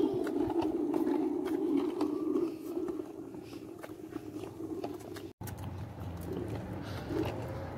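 Small plastic wheels of a toddler's three-wheeled kick scooter rolling over an asphalt footpath: a gritty, rattling whir with small clicks, strongest for the first two seconds or so and then fading, cutting out for an instant about five seconds in.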